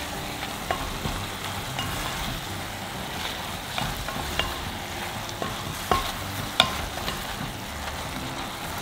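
Pork and chillies sizzling in a clay pot while being stir-fried with a wooden spatula, over a steady frying hiss. The spatula scrapes and knocks against the pot, with a few sharper knocks a little past the middle.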